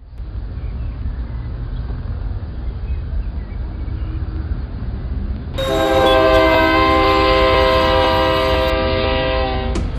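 Low rumbling railway ambience, then a train horn blows one long, steady, loud blast of about four seconds from a little past halfway and cuts off just before the end.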